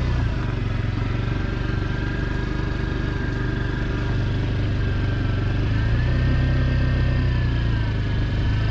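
Small motor scooter running steadily as it is ridden along. It makes a low hum with a thin higher whine, and the pitch rises a little about six seconds in.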